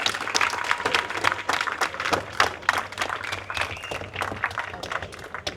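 Crowd applauding, a dense patter of hand claps that thins out and dies down toward the end, with a voice calling out once in the middle.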